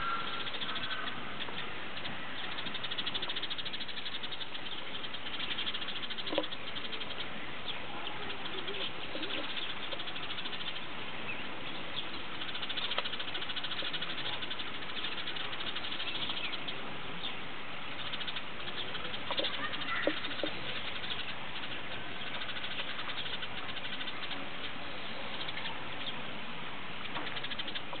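A flock of house sparrows chirping, many calls overlapping in a steady chatter, with a few louder single chirps standing out now and then.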